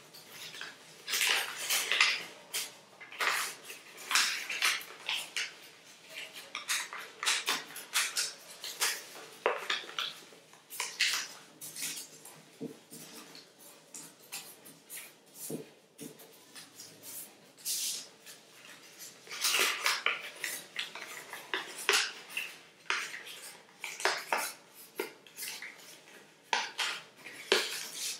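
Origami paper being folded and creased by hand: irregular crisp rustles and crinkles, coming in short clusters.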